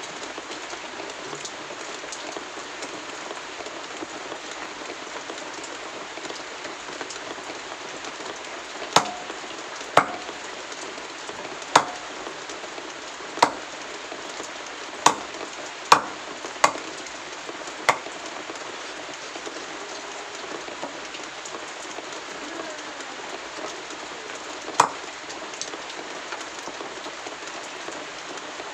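A large knife chopping chicken into pieces on a wooden block: about nine sharp chops, most of them close together in the middle, one more later on, over a steady hiss.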